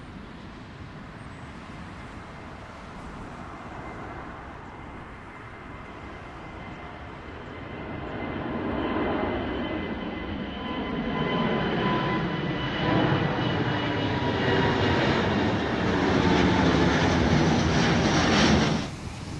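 Airbus A330-900neo's Rolls-Royce Trent 7000 turbofans at takeoff climb power, the jet passing low overhead: a steady high whine over engine noise that builds through the second half and grows loud, then cuts off suddenly near the end.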